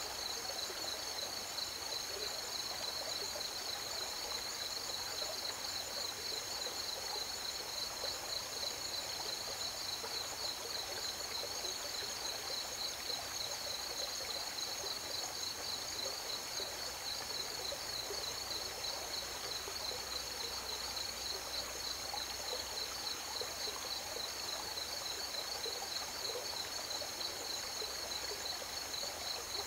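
Crickets trilling in a steady chorus, a high, rapidly pulsing drone, over the continuous rush of flowing river water.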